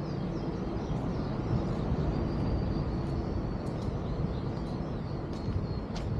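Small birds chirping in short high notes, with a couple of longer held whistles, over a steady low rumble.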